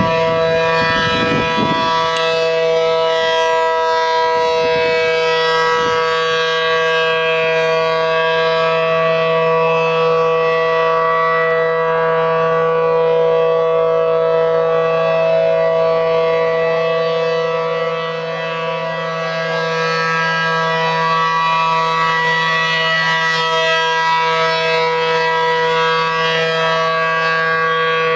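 ACA P-10 outdoor warning siren sounding a steady two-tone chord, holding its pitch throughout. Its loudness dips briefly about two-thirds of the way through and then swells back.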